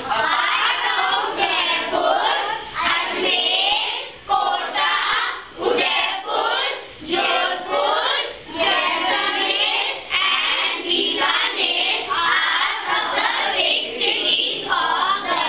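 A class of young children singing together in unison, loud and continuous, in short phrases.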